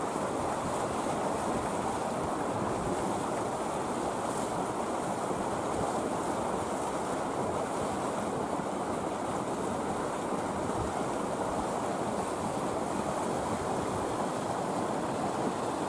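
Steady rushing wind noise on the microphone, even throughout, with no distinct event standing out.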